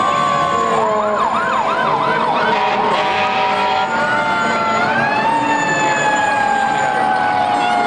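Several fire truck sirens sounding at once. One wail slowly falls in pitch throughout, and a quick yelp warbles up and down about four times a second from about one second in to about two and a half seconds in. About five seconds in, another siren rises in pitch, then slowly falls.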